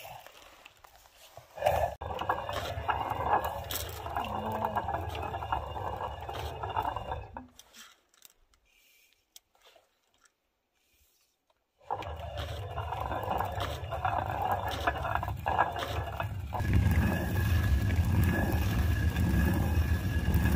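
Hand-turned stone quern grinding wheat: the upper millstone scraping round on the lower stone in a steady grinding rasp. It stops for about four seconds midway, picks up again, and grows heavier near the end.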